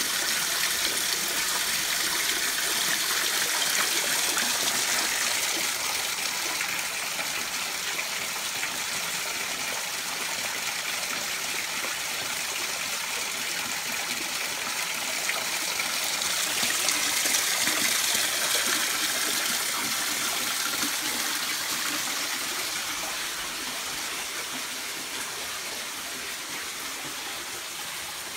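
Spring water running out of the stone spring outlets and splashing over rocks, a steady rushing splash that swells about two-thirds of the way through and fades near the end.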